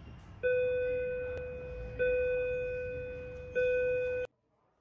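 A bell-like chime struck three times on the same note, about one and a half seconds apart, each stroke ringing and fading. It cuts off abruptly near the end.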